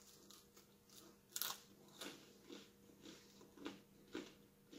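Faint crunching of a crisp, freshly baked bread crust being chewed: one sharper crunch about a second and a half in, then smaller crunches about twice a second.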